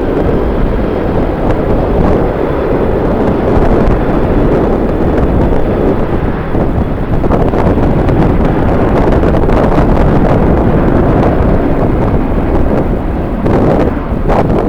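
Strong wind buffeting the microphone: a loud, steady rumbling roar.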